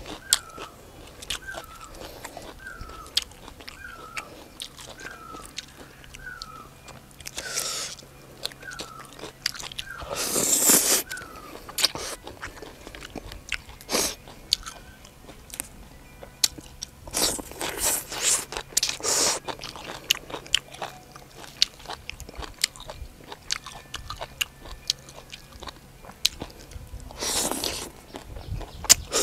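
Close-up eating sounds: crisp crunching bites into raw vegetables and chewing, broken by several louder slurps of noodles.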